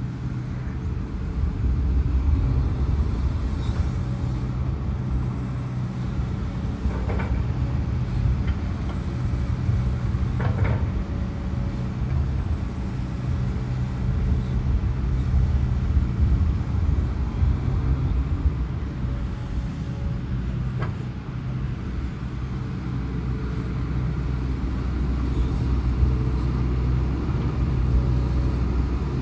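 Diesel engine of a hydraulic excavator running steadily while it digs, its level rising and falling with the load. A few short knocks sound about 7, 10 and 21 seconds in.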